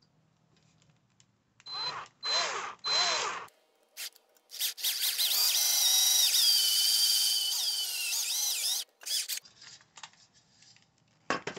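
Cordless drill boring a screw hole through a metal mirror-clip rail: three short trigger pulses of the motor, then one long run of about four seconds with a high whine that dips in pitch as it goes, stopping about three-quarters of the way in. A few light clicks follow.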